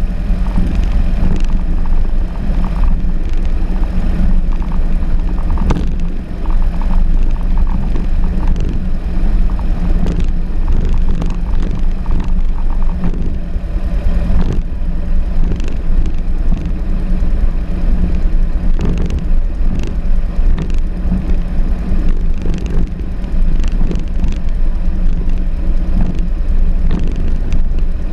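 Cessna's piston engine and propeller running at low taxi power: a steady low drone with irregular short knocks.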